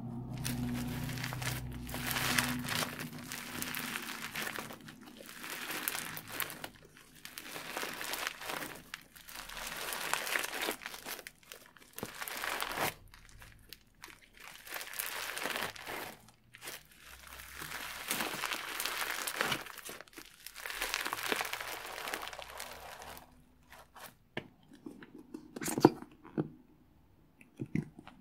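Pink floam slime (glue slime packed with small polystyrene foam beads) being squeezed, stretched and pulled apart by hand, giving a crunchy crackling, popping sound in repeated squishes about one to three seconds long with short pauses between them. In the last few seconds it thins to scattered sharp clicks and pops, one of them much louder.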